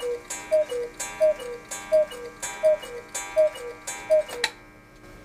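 Black Forest 8-day cuckoo clock striking the hour: the cuckoo calls in its two falling notes about six times, each call paired with a ringing gong strike, roughly every three-quarters of a second. The calling ends with a sharp click about four and a half seconds in.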